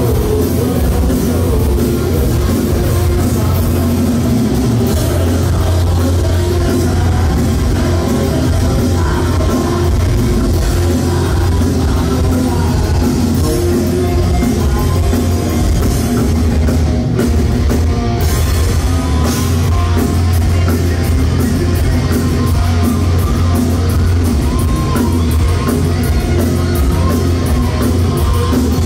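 Thrash metal band playing live through a concert PA: distorted electric guitars, a drum kit and a singer, loud and continuous. About halfway through, the drums settle into a fast, even beat.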